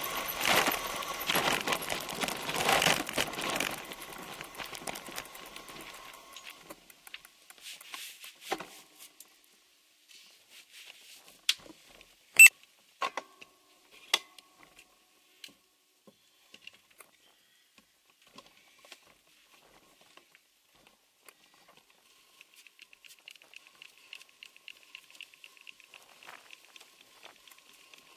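Bicycle rolling on a gravel track: tyre crunch and rattling that fade out over the first several seconds as the bike comes to a stop. Then scattered clicks and knocks, one sharp click near the middle, and a faint high steady chirring near the end.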